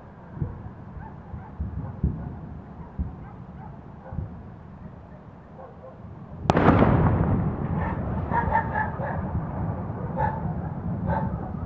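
Ammunition depot explosion: a low rumble with scattered dull thuds of detonations, then about six and a half seconds in a sharp blast hits and rolls into a loud, long rumble.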